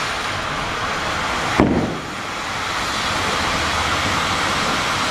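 Steady hissing spray of Diwali fireworks, with a single firecracker bang about one and a half seconds in.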